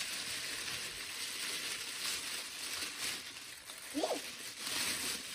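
Shiny metallic gift wrap crinkling and tearing as two presents are unwrapped by hand, a steady crackly rustle. A child's brief vocal sound cuts in about four seconds in.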